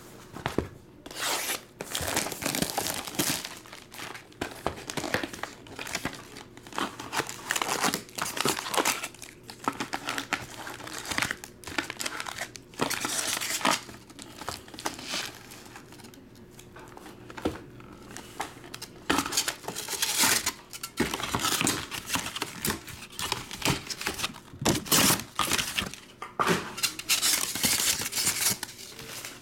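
Wrapping on trading-card hobby boxes being torn off and foil card packs pulled out and handled: crinkling and tearing in irregular bursts.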